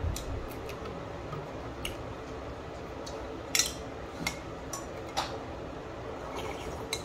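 A few separate short clinks and clicks of a spoon and a white bowl being handled while someone eats from it. The loudest comes a little past halfway.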